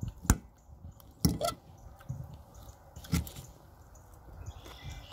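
A fork clicking against a plate: a few sharp clicks, the loudest about a third of a second in, then more around a second and a half and three seconds in.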